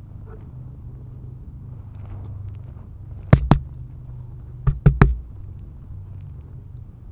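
Five sharp, loud clacks close to the microphone: two in quick succession about three and a half seconds in, then three more about a second later. Under them is a steady low rumble.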